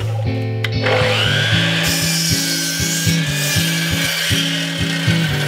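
DeWalt sliding miter saw spinning up with a rising whine about a second in, then its blade cutting through a Douglas fir board, over background rock music with a steady beat.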